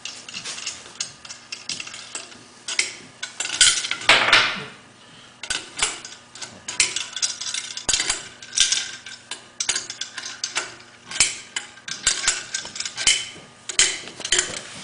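Irregular metallic clinks and clicks as nuts and an adjustable wrench knock against a wind-turbine hub and its metal disc while they are being bolted together, with a louder scraping noise about four seconds in.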